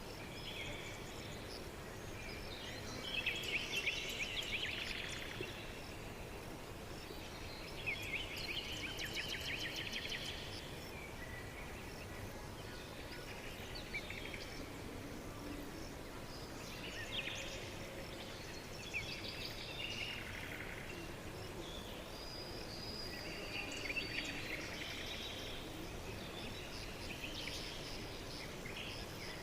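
Birds singing in the wild, in bursts of rapid trills and chirps over a steady background hiss, loudest about three to five seconds in and again around eight to ten seconds in.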